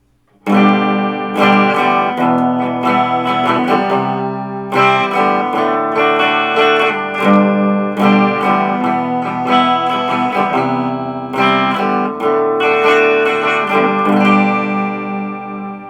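1970s Univox electric guitar played on its bridge pickup: a run of strummed chords and picked notes, starting about half a second in and ringing on almost to the end.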